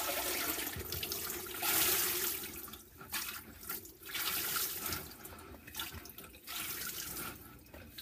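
Rinse water running and splashing out of a slotted plastic basket of wet raw wool fleece as it is lifted out of a bucket and the wool is pressed down by hand. The draining comes in several uneven surges.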